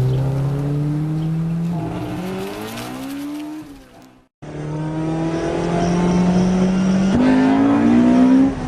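Honda VTEC car engine accelerating hard, its pitch climbing steadily. It fades away about four seconds in, then a second pass climbs again and steps up sharply in pitch near the end.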